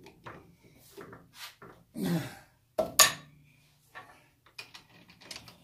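Metallic clicks and clinks as a steel rod is repositioned in a lathe's three-jaw chuck and the chuck is loosened and retightened, with one sharp clink about three seconds in.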